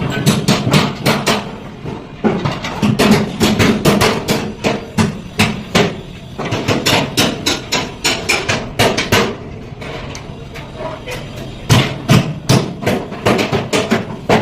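Rapid, repeated strikes of a hand tool on wood, several a second, going quieter and sparser for a stretch around ten to eleven seconds in.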